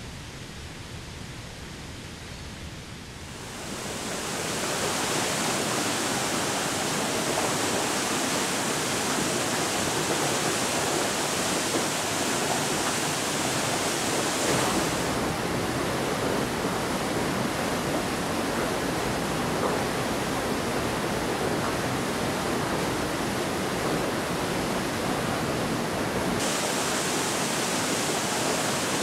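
Steady roar of rushing water in the River Devon's gorge at Rumbling Bridge. It is softer and more distant for the first few seconds, then swells to the full, close rush of a waterfall plunging into a rock pool. Later the hiss at the top of the sound changes abruptly twice as the recording switches between microphones.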